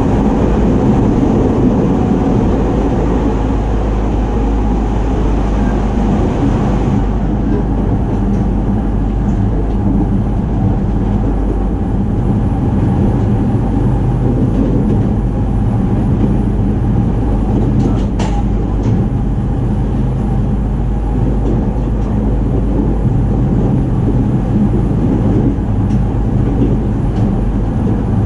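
Running noise of a 209 series electric commuter train heard from inside motor car MoHa 208-2103: a steady low hum under rolling noise from the wheels and rails. About seven seconds in the upper hiss thins out, and a single faint click comes about 18 seconds in.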